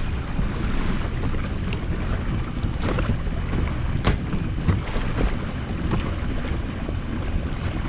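Wind buffeting the microphone and water against a jet ski's hull as it moves at trolling speed, with a low rumble underneath. Two sharp knocks come about three and four seconds in.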